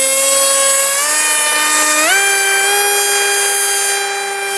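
RC model jet's motor giving a steady high whine whose pitch steps up sharply about two seconds in as the throttle is opened, then holds.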